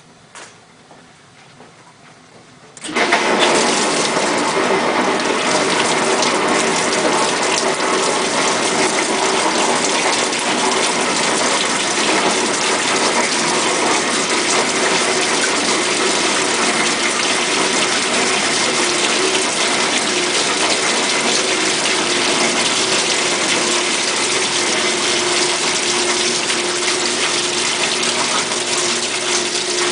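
1958 GE Mobile Maid portable dishwasher's pump motor switching on about three seconds in, after a few faint clicks. Water then rushes and sprays steadily inside the tub over a steady motor hum.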